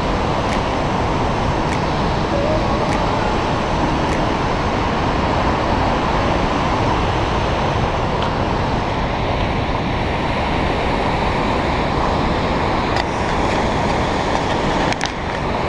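Steady roar of a rushing glacial meltwater river in white water, with a few faint ticks about once a second in the first few seconds.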